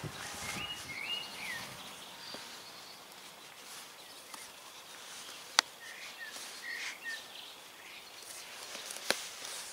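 Quiet outdoor ambience with birds chirping briefly twice, while the laces of chainsaw-protection boots are pulled and tied. Two sharp clicks, about three and a half seconds apart, are the loudest sounds.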